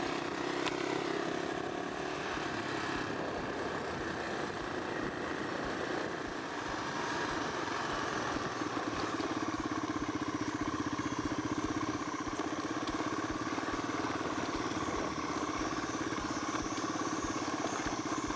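Enduro motorcycle engine running steadily while riding on a dirt road, heard from on the bike. The engine note picks up a little about seven seconds in and then holds steady.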